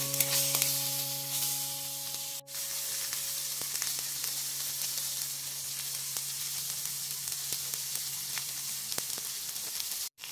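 Sizzling of halved boiled eggs and masala frying in a small steel kadai, with faint ticks of the stirring spoon against the pan. The sizzle drops out for an instant about two seconds in.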